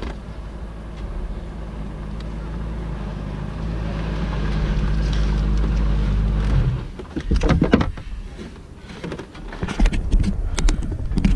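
Sports prototype racing car's engine idling steadily, then switched off about two-thirds of the way in. Close knocks and rustles follow as the driver's helmet is pulled off and handled.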